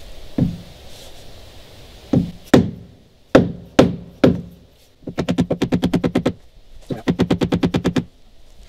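A wooden dowel knocking against the collapsed old brass through-hull drain tube in a fibreglass transom to drive it out: about six separate knocks, then two rapid rattling runs of about ten strokes a second, each lasting a second or so.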